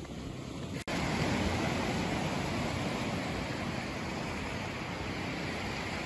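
Steady rush of small surf waves washing over sand at the water's edge. It starts after a sudden break about a second in.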